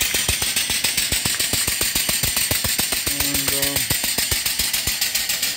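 Small vertical steam engine running steadily at about 225 RPM, beating in an even rhythm of about seven strokes a second over a constant hiss of exhaust steam.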